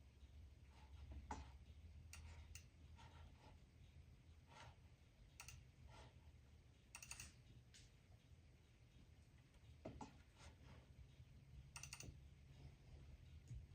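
Faint, irregular clicking of a computer mouse and keyboard, some clicks coming in quick pairs, over a low steady hum.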